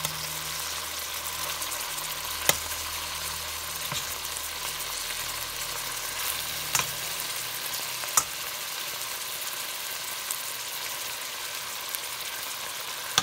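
Cubes of soy-marinated beef sizzling steadily as they fry in a pan in their own juices, with a few sharp clicks along the way.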